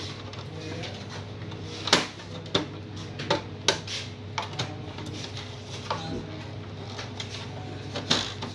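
Plastic snap clips of an HP LaserJet MFP M233dw's rear cover clicking and knocking as the panel is pried loose with a screwdriver: a string of sharp clicks, loudest about two seconds in and near the end, over a steady low hum.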